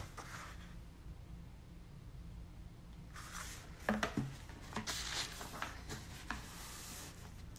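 Paper rustling and a few light taps as a picture book is handled and its pages turned, mostly in the second half, as the book is set back down on the table.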